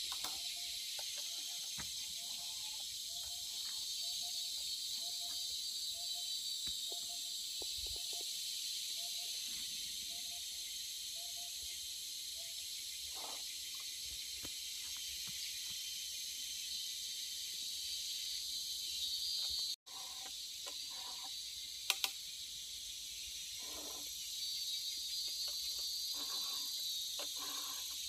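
A steady, high-pitched insect chorus, like crickets or cicadas, swelling and fading. For the first dozen seconds a short lower note repeats about once a second.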